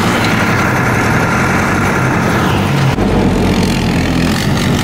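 Kubota's engine running steadily while being driven, close to the microphone, with its note shifting about three seconds in.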